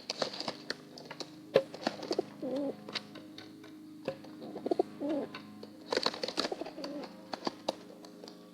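Pigeons' claws clicking and scraping on slippery plastic as the birds slide and fail to get a grip. Soft pigeon cooing comes in a couple of times, about two and a half and five seconds in.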